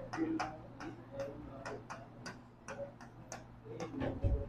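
Writing on a blackboard: short irregular taps and scrapes of the writing tip against the board, about three or four a second, with a low thump near the end.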